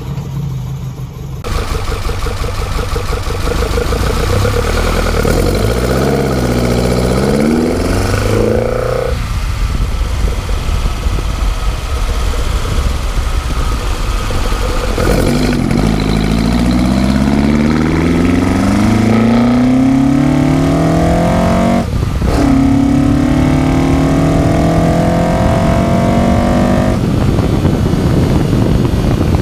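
The Harris Performance engine with twin carburettors in a 1977 Ford Escort Mk2 RS2000, heard from inside the engine bay, accelerating hard under load. Its pitch climbs through several gears, with brief lifts at the gear changes, one sharp break about two-thirds of the way in.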